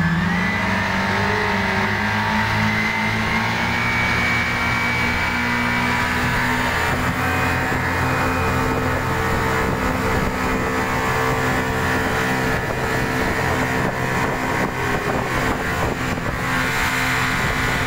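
Motorboat engine running at speed on a sea trial, with wind and water rushing past. Its pitch rises slightly over the first second, then holds steady, with wind buffeting growing stronger from about seven seconds in.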